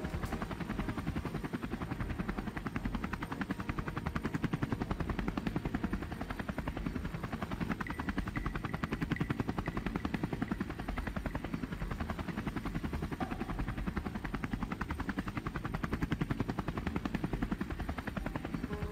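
A steady, fast mechanical chopping noise, even throughout with no pauses.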